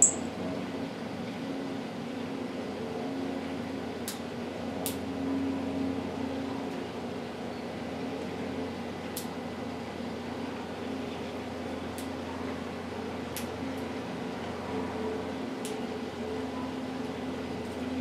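Steady mechanical hum with a couple of held tones, like an air-conditioning unit or fan running. About six faint, sharp ticks are scattered through it.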